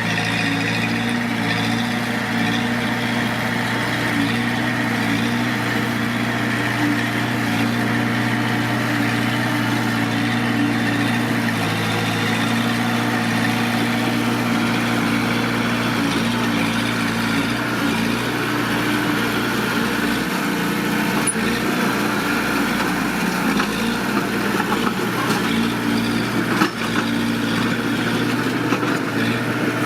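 Mitsubishi D20 bulldozer's diesel engine running steadily, with a few knocks in the second half.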